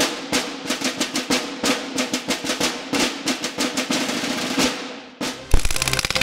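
Drum-heavy percussive music with irregular hits. About five and a half seconds in, a rapid, evenly spaced full-auto burst from a CO2-powered Umarex M3 grease gun replica BB gun starts as louder, bass-heavy music comes in.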